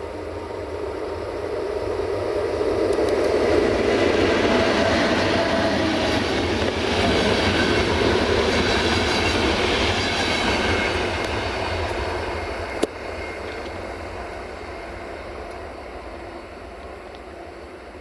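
An electric locomotive and its passenger coaches roll past, the noise of wheels on rails swelling as the train nears, loudest while the coaches pass, then fading as it draws away. There is one sharp click about thirteen seconds in.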